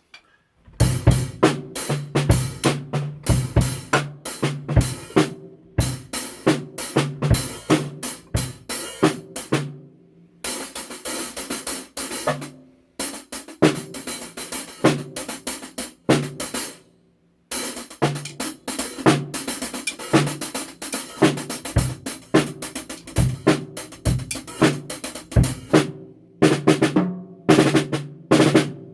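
Drum kit played in a loose warm-up: runs of snare, bass drum, hi-hat and cymbal strokes, broken by a few brief pauses.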